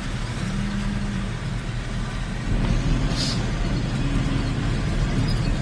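Motor vehicle on the move: steady engine and road rumble, a little louder from about halfway through.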